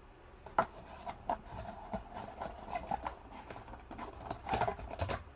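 Trading cards and packs being handled on a desk: irregular light clicks and taps, with a denser patch of rustling about four and a half seconds in.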